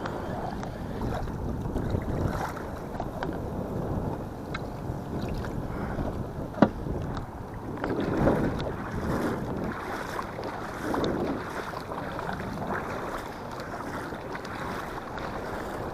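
Wind buffeting the microphone, with water lapping and a single sharp click about six and a half seconds in.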